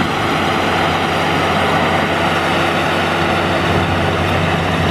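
Combine harvester running steadily close by: an even engine drone with a constant mechanical clatter over it.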